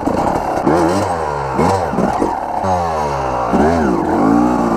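Yamaha YZ250 two-stroke dirt bike engine being ridden, revving up and dropping back several times as the rider works the throttle.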